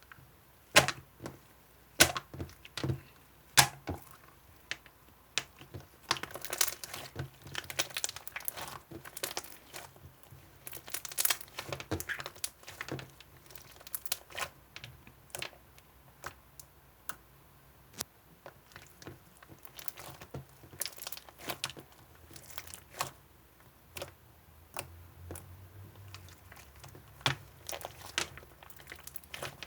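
Crinkly material being handled and torn close up, with irregular sharp clicks and taps throughout and denser crinkling in two stretches.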